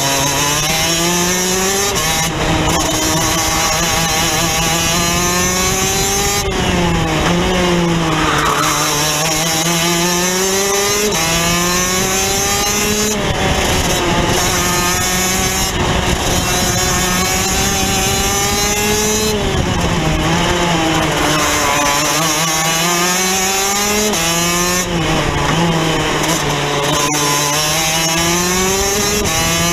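Rotax DD2 kart's 125 cc single-cylinder two-stroke engine racing, heard from on board: the revs climb, drop sharply, and climb again every few seconds as the kart laps the track.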